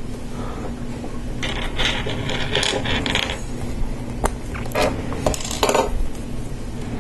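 Small hard-plastic LEGO Technic parts being handled and pressed together: a stretch of scraping and rubbing in the first half, then several sharp clicks as pins snap into connectors.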